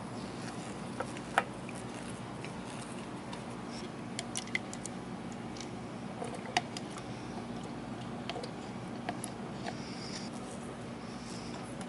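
A few faint clicks and taps from handling a metal tin of Danish oil and its plastic screw cap as the oil is poured into a plastic cup, over a steady low background hum.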